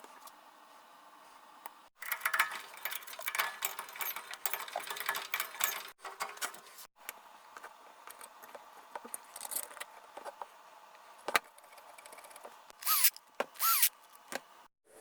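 Hand tools and small metal parts being handled during workshop assembly: irregular clattering, clicks and light metallic jingling, busiest in the first half, with two short falling squeaks near the end.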